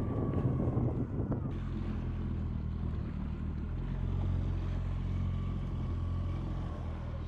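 Outboard motor of a small inflatable boat running at a steady speed. The first second and a half is rougher, with wind on the microphone and a few knocks, before the even engine drone.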